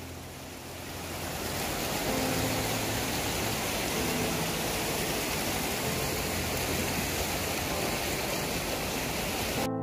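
Steady rush of a swollen river running fast over rocks and rapids. Faint piano music sits underneath from about two seconds in.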